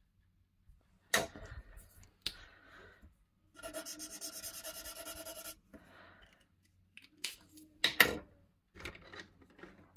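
Felt-tip alcohol marker scribbled rapidly back and forth on paper, about ten strokes a second for roughly two seconds in the middle, with a faint squeak. A few sharp clicks from handling come before and after it.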